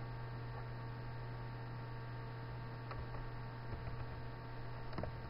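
Steady electrical mains hum with a few faint clicks about three and five seconds in.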